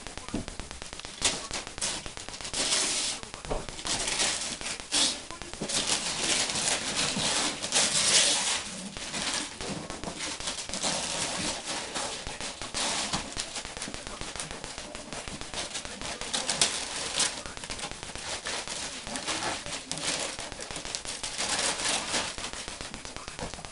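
Gift wrapping paper being torn off and crumpled while presents are unwrapped: a run of crackling rips and rustles, loudest about eight seconds in.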